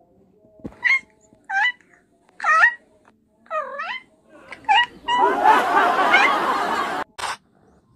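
A cat meowing in five short, high calls about a second apart, then about two seconds of loud, harsh hissing.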